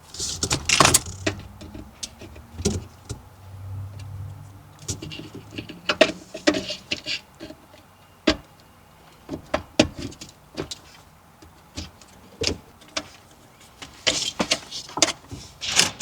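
Irregular clicks, knocks and rustling of a wiring harness and its plastic connectors being handled and plugged together.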